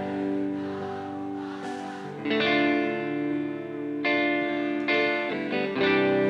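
Live rock band playing an instrumental passage led by electric guitar: full chords struck and left ringing, with a new chord about every two seconds.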